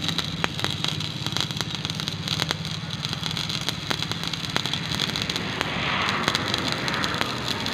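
Stick (shielded metal arc) welding on steel angle iron: the arc crackles and sizzles continuously, with frequent sharp spatter pops. A steady low hum runs beneath it, and the crackle swells a little about six seconds in.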